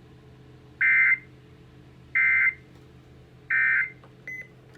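Emergency Alert System end-of-message data tones: three identical short bursts of digital warble, about a second and a half apart, marking the end of the alert broadcast.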